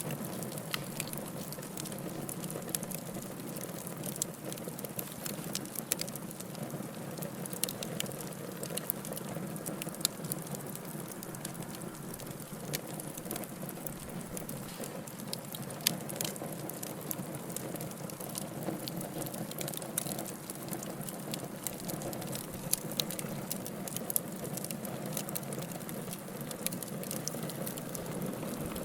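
Fire in a fireplace crackling, with many sharp pops over a steady hiss.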